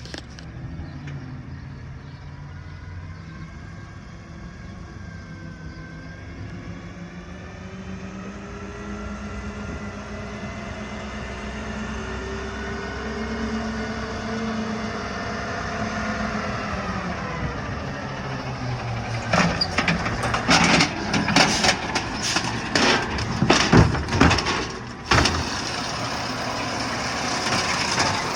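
Garbage truck's diesel engine running as it draws up, its note slowly rising and then dropping off after about 17 seconds. Then a run of loud clanks and bangs as the truck begins the pickup.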